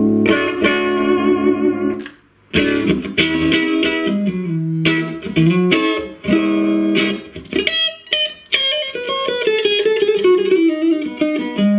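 Electric guitar played through a Mesa/Boogie Triple Rectifier Solo Head valve amplifier, freshly repaired and being play-tested: a ringing chord, a short break about two seconds in, then single-note riffs and a quick run of notes near the end.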